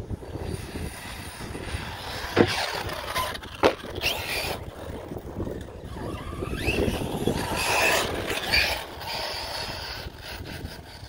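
Arrma Outcast RC truck with a Surpass Hobby 4076 2000Kv brushless motor driving over rough grass, its high-pitched whine rising and falling with the throttle. Two sharp knocks come a little over a second apart early in the clip. The owner puts the high-pitched noise down to the pinion-to-spur gear mesh.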